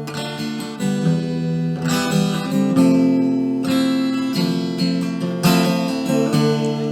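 Acoustic guitar strumming chords in an instrumental passage of the song.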